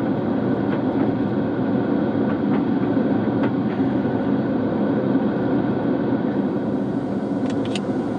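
Four-wheel drive's engine idling steadily, heard close up from a camera on its bonnet.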